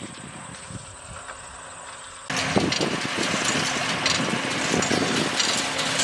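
Tractor pulling a hay baler, its engine and baler running. It is faint at first, then much louder and closer from about two seconds in.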